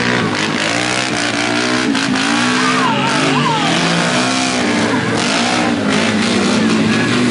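Side-by-side off-road buggy's engine revving hard as it churns through deep mud, its pitch rising and falling again and again.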